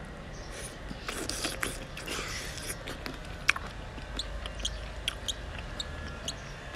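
Close-miked mouth sounds of a man chewing raw shrimp in chili sauce: wet smacking and scattered small clicks, with one sharper click about three and a half seconds in.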